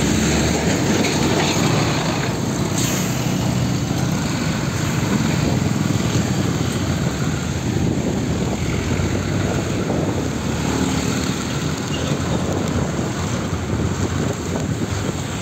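Hino Ranger truck's diesel engine running as it drives past and away at close range, over steady road traffic noise.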